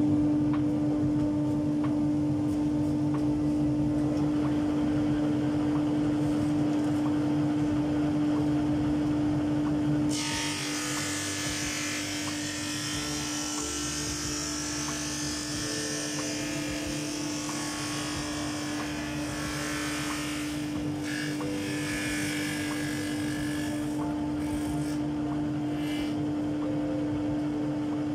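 JIB 21106 drum sander running with a steady hum. About ten seconds in, a hissing grind joins it as a thin 5 mm plywood oval feeds under the sanding drum, and it goes on to near the end.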